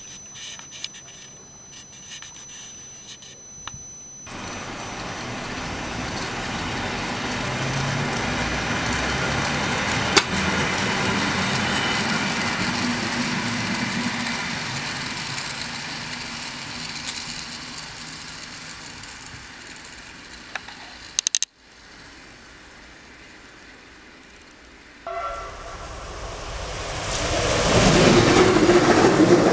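An electric multiple unit starts up about four seconds in and pulls away, its motors and wheels running with a steady whine that swells and then slowly fades. Near the end a second electric train approaches and passes at speed with a loud, rising rush of wheel and air noise.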